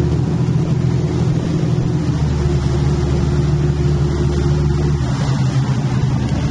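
Sportfishing yacht's inboard engines droning steadily on the water. The note shifts a little about two seconds in, and its low part drops away about five seconds in.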